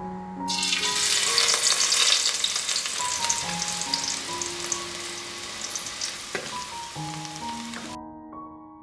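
Chopped garlic sizzling as it hits hot oil in a metal pan, loudest in the first couple of seconds and slowly dying down, then cutting off sharply near the end. Soft piano music plays underneath.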